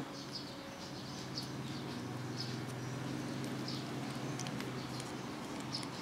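Faint bird chirps about once a second over a steady low hum, with a few light clicks from the plastic camera clamp being handled.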